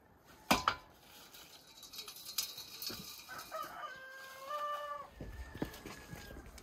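A rooster crows once, a drawn-out call of about two seconds that rises and then holds. Earlier, about half a second in, a wooden ladder knocks sharply twice as it is handled; this is the loudest sound.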